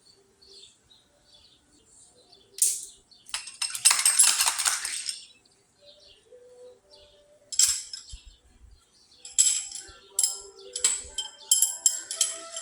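Steel tools and engine parts clinking against each other, with short metallic ringing after the strikes, in a quick run of clinks near the end. A rushing noise lasts about two seconds near the start, and birds chirp faintly.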